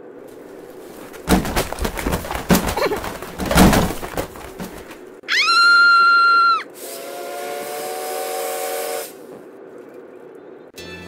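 A string of irregular knocks and crashes, then a loud whistle that rises quickly and holds one pitch for about a second and a half, followed by a hiss lasting about two seconds.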